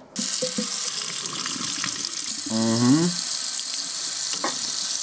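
A steady rushing hiss starts abruptly just after the start. About halfway through, a man groans once, his mouth burning from hot jalapeño peppers.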